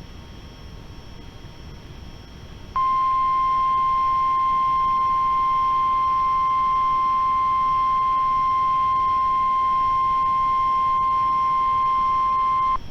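NOAA Weather Radio 1050 Hz warning alarm tone: one steady, unwavering beep that starts about three seconds in, after faint hiss, and holds for about ten seconds before cutting off. It is the tone that precedes a National Weather Service emergency message.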